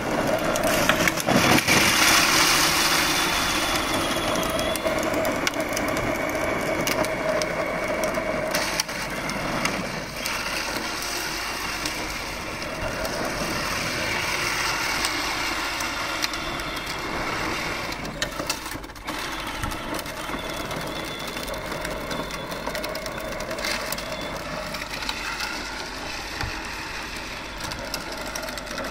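Peg Perego ride-on toy tractor, running on an upgraded 18-volt battery, driving over concrete: its electric motor and gearbox run while the hard plastic wheels rumble and crunch on the road. The sound gets gradually quieter as the tractor drives away.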